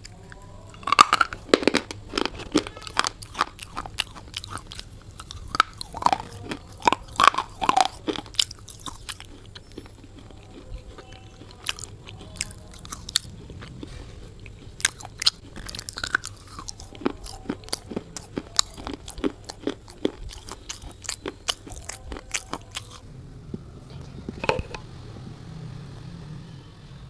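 A person biting and chewing hard, brittle earthen pieces: many sharp crunches in quick succession, thinning out after about 23 seconds.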